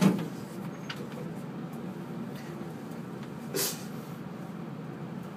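Elevator car running, a steady low hum, with a knock as it sets off and a brief rush of noise about three and a half seconds in.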